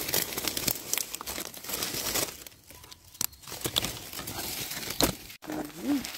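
Dry fallen leaves crackling and rustling as a hand digs through the leaf litter to pick a mushroom. There is a sharp knock near the end.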